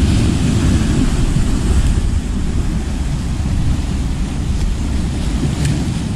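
Wind buffeting the microphone in a steady, gusting rumble, over sea waves washing against rocks.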